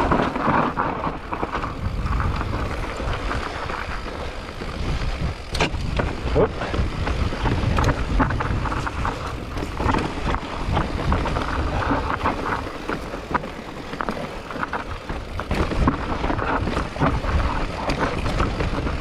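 E-mountain bike riding down a rough trail: tyres rumbling over dirt and rock, with the frame and chain rattling in frequent quick knocks and wind on the microphone.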